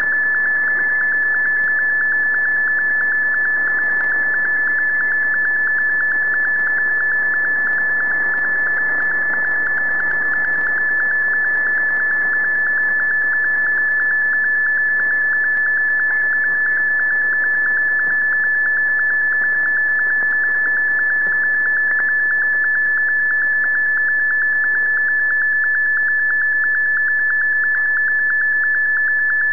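A Shortwave Radiogram MFSK digital picture transmission received on a shortwave AM radio: a single steady tone with a fast flutter, over the receiver's band-limited static hiss.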